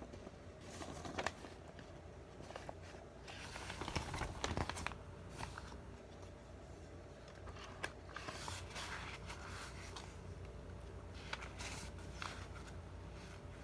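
Faint, scattered rustling and a few light clicks, like things being handled, over a low steady hum.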